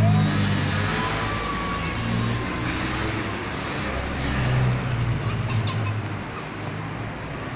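City street traffic: a nearby motor vehicle's engine runs with a low, steady hum over the general traffic noise, fading after about five seconds.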